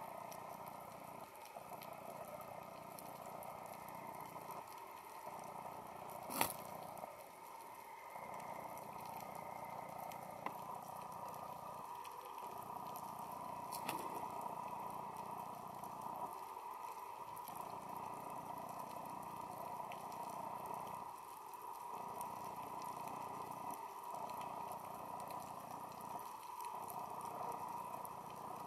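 Steady underwater ambient noise: an even hiss over a low rumble that drops out briefly every few seconds, with one sharp click about six seconds in.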